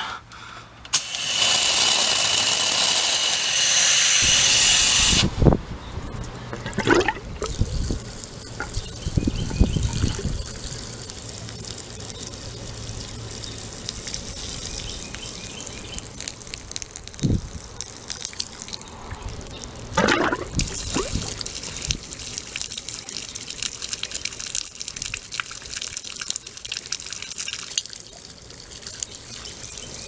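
Water from a garden hose forced into a PVC condensate drain line to flush it, rushing loudly for the first few seconds. Then water pours in a steady stream from the open end of the drain pipe, with a few bumps.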